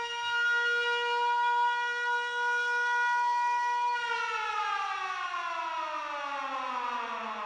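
Siren-like sound effect: a steady wailing tone held for about four seconds, then sliding steadily down in pitch, like a siren winding down.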